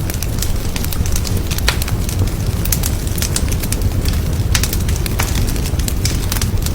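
Fire burning in a fireplace, crackling with irregular sharp pops over a steady low rumble.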